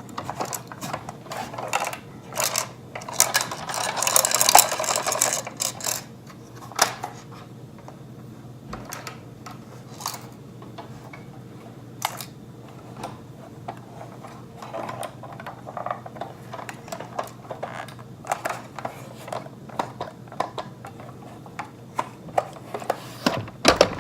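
Small clicks, taps and scrapes from a 1:18 diecast model car being handled and its parts worked, with a denser stretch of rustling and scraping a few seconds in. A steady low hum runs underneath.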